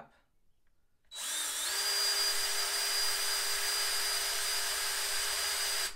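Power drill with a twist bit spinning up about a second in, running at a steady high speed with a steady whine, and stopping suddenly near the end, drilling out the hole in a plastic soda bottle cap.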